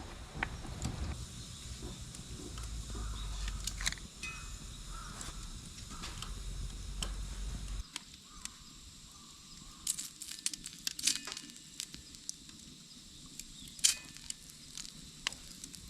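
Wood fire crackling in a kamado stove: scattered sharp pops and ticks over a low rumble that cuts off abruptly about eight seconds in.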